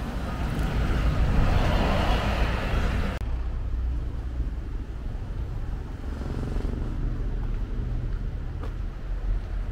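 Street traffic: a car passing close by, its engine and tyre noise swelling over the first few seconds, then cut off abruptly. A quieter low rumble of distant traffic follows.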